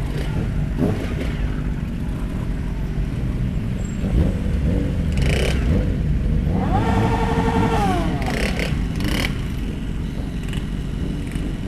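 Motorcycle engine running while riding, with wind noise and traffic around it. A little past the middle a pitched engine or horn tone holds steady for about a second and then falls away.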